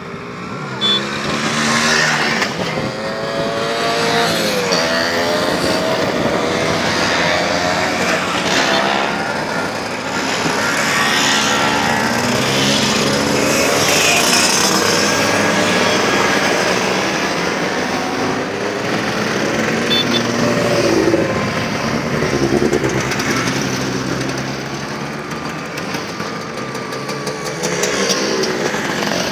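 A long procession of Vespa and Lambretta scooters riding past one after another, their small engines buzzing and overlapping, with each machine's pitch rising and falling as it goes by.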